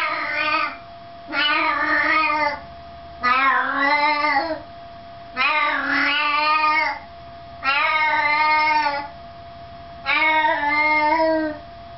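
Siamese cat meowing loudly and insistently: six long, wavering meows, one about every two seconds.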